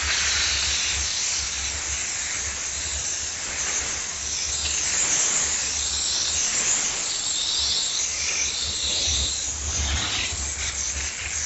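Steam jet from a diesel-heated steam cleaner's gun hissing steadily, getting brighter and duller as the jet plays over the surface, over a low steady hum.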